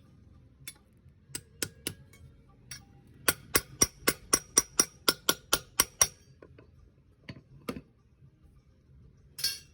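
Hammer blows ringing on steel as a rubber-tapping knife is forged: a few scattered strikes, then a quick even run of about a dozen ringing blows at about four a second, then two more. A brief rough scraping noise comes near the end.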